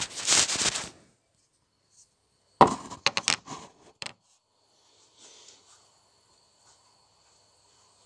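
Handling noise from a phone held close to its microphone. A brief rustling burst comes first, then a quick cluster of knocks and clicks as the phone is moved and set down.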